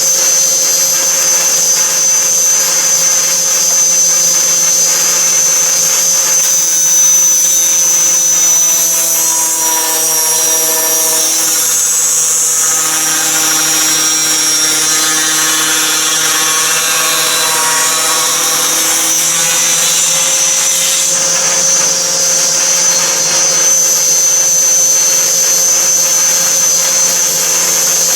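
Power saw with several blades stacked on one arbor running with a steady high whine. From about 7 to 21 seconds in it cuts through a 2x6: the sound turns noisier and harsher and its tones shift under the load, then it settles back to the free-running whine.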